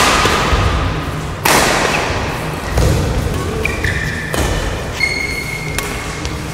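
Badminton rally: rackets striking the shuttlecock about five times, roughly every second and a half, opening with a hard smash. Short sneaker squeaks on the court mat come between the later shots.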